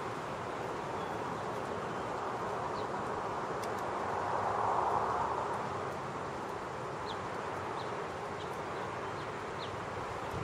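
Steady outdoor background noise that swells for a second or so about four to five seconds in, with a few faint, short high chirps in the second half.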